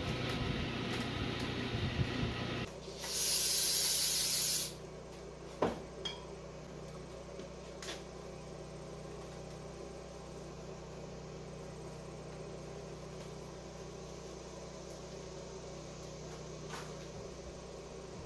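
A small power tool's motor runs steadily and stops about two and a half seconds in. Then comes a loud blast of compressed air, about a second and a half long, followed by a few light clicks in a quiet workshop.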